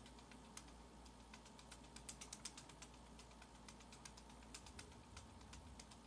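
Near silence with faint, irregular light clicks, bunched together about two seconds in.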